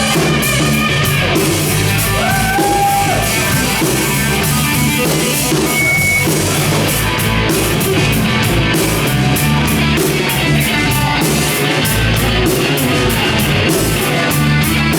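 Live country-rock band playing an instrumental stretch: electric guitar over a drum kit, steady and loud.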